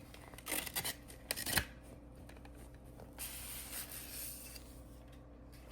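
Faint handling noises as a robot-vacuum mop pad is handled: a few light clicks and rustles, then a soft rubbing sound about three seconds in.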